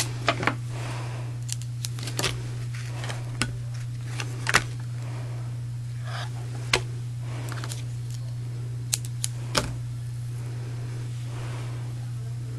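Scissors and craft supplies handled on a cutting mat: scattered, irregular sharp clicks and snips over a steady low hum.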